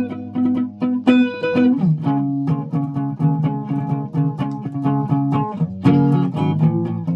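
Guitar being plucked note by note: a halting run of short single notes, several a second, over a few lower ringing notes, the playing of a learner.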